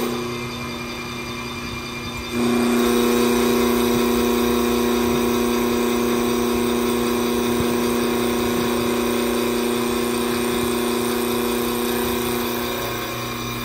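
STYLECNC automatic CNC wood lathe turning a wooden spindle, its cutter cutting into the spinning blank. A steady pitched hum over a machine din comes in sharply about two seconds in and fades slightly near the end.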